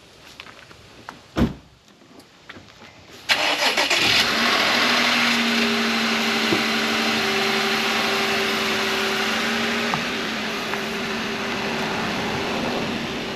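An engine starts suddenly a little over three seconds in and keeps running steadily, after a few faint knocks and a click.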